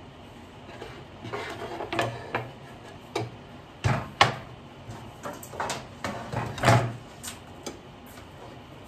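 A string of separate knocks and clunks, the loudest about four seconds in and again near seven seconds: a plywood panel and scraps of wood being handled and set down on a workbench.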